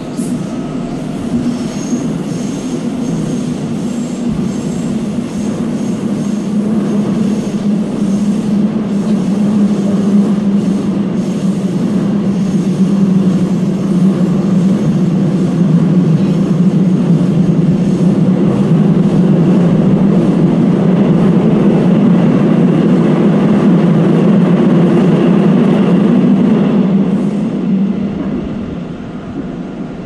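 Seoul Subway Line 3 train running through a tunnel, heard from inside the car: a steady, loud rumble of wheels on rails that builds over the first half and eases off near the end.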